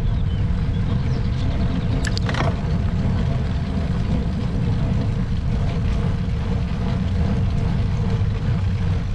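Steady low rumble of wind buffeting the microphone and tyres rolling on the road while riding a road bike, with a brief clatter about two seconds in.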